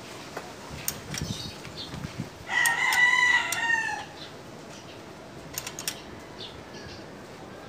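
A rooster crowing once, a drawn-out call of about a second and a half that drops in pitch at the end. Faint scattered clicks and taps are heard around it.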